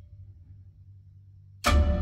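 Test music played over a hi-fi system: a quiet lull holding only a low bass rumble, then a sudden loud percussive hit with deep bass and a ringing tail near the end.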